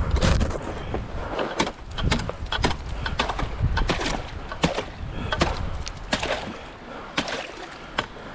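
Snow crunching underfoot in a string of irregular sharp crunches, with a low rumble in the first two seconds.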